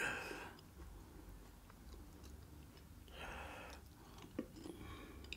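Faint crackle of a crisp papad being broken and bitten, then chewed as quietly as possible. There are short soft crunches at the start and about three seconds in, and small clicks near the end.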